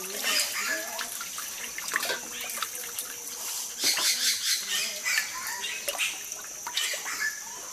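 Water splashing and sloshing in irregular bursts, over a steady high-pitched hum.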